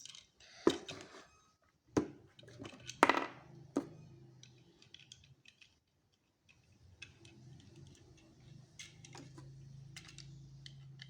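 Plastic LEGO pieces clicking and clattering as they are handled and loaded into a LEGO pistol: a few sharp knocks in the first four seconds, then lighter scattered ticks.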